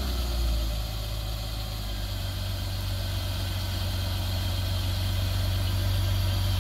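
BMW E46 330Ci's 3.0-litre inline-six running at idle just after being started, settling from the start-up flare to a steady idle in the first second. It is the first run after a new idler pulley, accessory belts and radiator were fitted.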